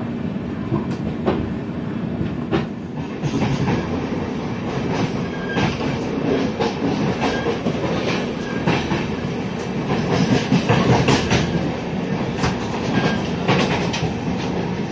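Rajdhani Express train with Tejas coaches running along the track: a steady rumble of wheels on rail, with irregular clacks and knocks as the wheels pass over rail joints.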